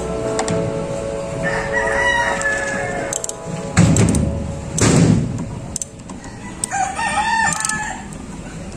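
A rooster crowing twice, once a couple of seconds in and again near the end. In between come two loud low rushes of noise about a second apart.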